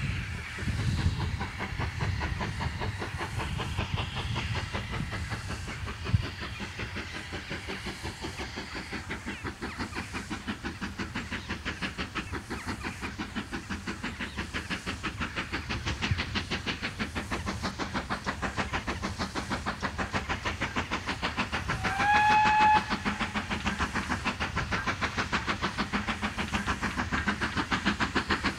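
GWR Manor class two-cylinder 4-6-0 steam locomotive working a train at speed, its exhaust beating fast and evenly over the rumble of the coaches on the rails. Its whistle sounds once, briefly, about three-quarters of the way through, rising at first and then holding steady.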